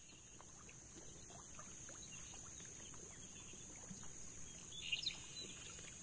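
Faint wetland ambience fading in: a steady high-pitched buzz with a few short bird chirps about five seconds in.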